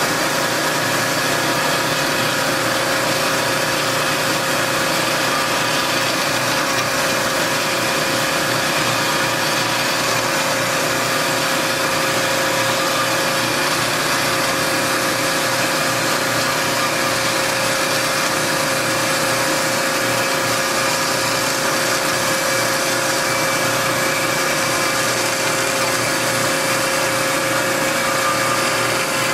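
Hyd-Mech S-25P hydraulic horizontal band saw running and cutting down through a square metal bar, a loud, steady machine sound with a constant tone.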